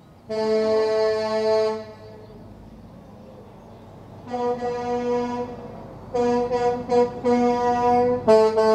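Truck air horns sounding a chord of several notes: a long blast, then after a pause more blasts, a quick run of short toots, and another long blast starting near the end.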